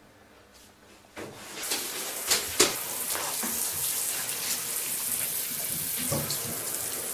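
Handheld chrome shower head spraying water into a bathtub: it comes on about a second in and runs as a steady rush, with a few sharp knocks.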